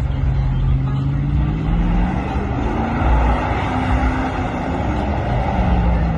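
Car engine held at high revs while the car spins its tyres in a burnout or donut. The engine note slowly climbs, then drops back near the end, over a steady rush of noise.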